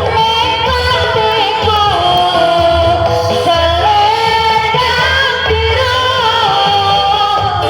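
Loud amplified music with a singer's voice carrying a wavering melody line over low bass.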